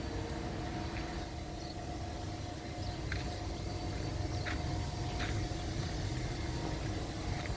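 Steady low outdoor background rumble with a faint hum, broken by a few short, high chirps or squeaks.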